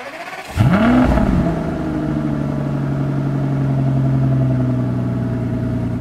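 2005 Aston Martin DB9's V12 engine being started: the starter cranks for about half a second, the engine catches and flares up in revs, then settles into a steady fast idle.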